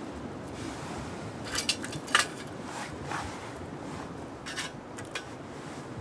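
Dry twigs and carved feather sticks clicking and scraping against the thin metal walls of a Savotta Happy Stove, a small folding wood-burning pocket stove, as they are pushed in. There are a handful of short knocks, the loudest about two seconds in.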